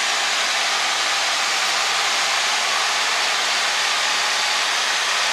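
Steady cabin noise of a Cessna light aircraft in flight: the piston engine's drone and the rush of air, heard as an even hiss.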